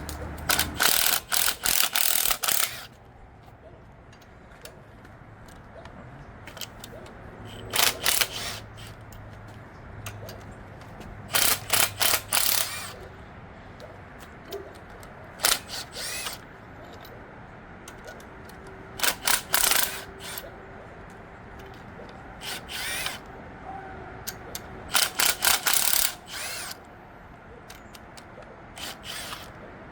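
Ratchet wrench clicking in about eight separate bursts while the cylinder head bolts of a GM LQ9 V8 are loosened.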